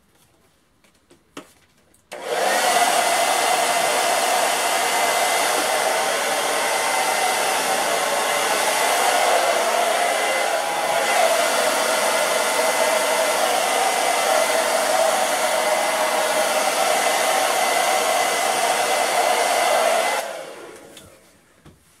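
Handheld hair dryer switched on about two seconds in, running steadily with a thin high whine over the rush of air, then switched off near the end and winding down.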